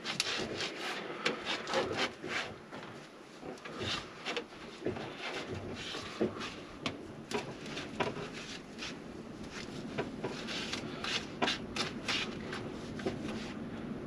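Dust being rubbed by hand off a mesh RV air-conditioner filter: quick, uneven scratchy strokes, with a fast run of them near the start.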